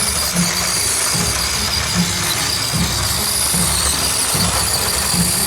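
Axial SCX24 micro RC crawler's small electric motor and geared drivetrain whining steadily under load as it climbs a steep boulder.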